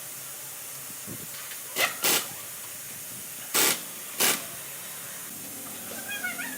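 Four short, sharp hissing bursts in two pairs, like quick blasts of pressurised air or spray, over a steady background hiss. Faint chirping comes in near the end.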